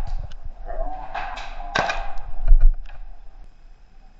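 Footsteps and gear knocking as a player moves, with low bumps on the head-mounted camera: a string of irregular sharp knocks and clatters, loudest a little under two seconds in and again about two and a half seconds in.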